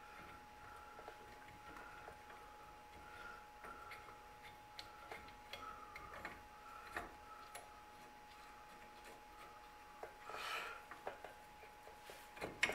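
Faint clinks and taps of metal parts and tools being handled while a disc brake caliper bracket is fitted by hand, over a faint regular ticking about twice a second and a steady thin hum. A brief louder rustle comes about ten seconds in.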